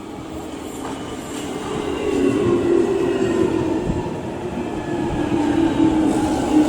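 London Underground Jubilee line 1996 Stock train (Alstom Metro-Cammell) coming in, its traction motors whining in a tone that falls steadily in pitch as it slows, growing louder throughout.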